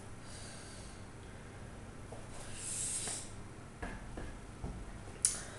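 Quiet kitchen handling noises: a few faint taps and clicks, a brief hiss about halfway through, and one sharp click near the end.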